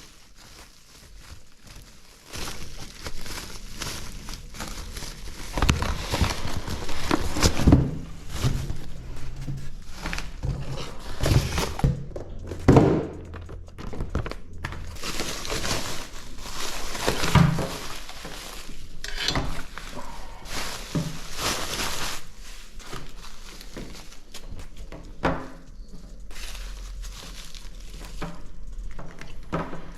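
Unboxing handling noise: plastic wrapping and packaging crinkling and rustling, with irregular thunks as parts and the box are moved and set down.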